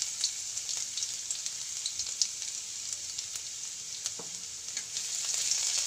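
Finely chopped garlic and cumin seeds sizzling in hot cooking oil in a steel kadhai: a steady high hiss with scattered small crackles.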